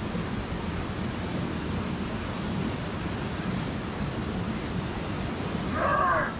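Steady rushing of a mountain stream running over rocks. About six seconds in, a short shout.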